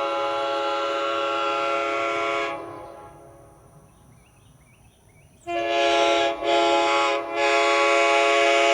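Nathan Airchime K3HA three-chime locomotive air horn, a 1980s wide-font horn rebuilt with new internals, blowing a steady chord. It cuts off about two and a half seconds in and its sound dies away. It sounds again abruptly a few seconds later, breaks off briefly twice, and then holds.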